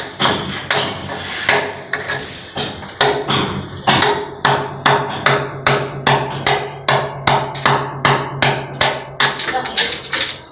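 Hammer striking a chisel into a brick and mortar wall in quick, regular blows, about two to three a second, chipping a recess beside a PVC sewer pipe. A steady low hum runs underneath from about three seconds in.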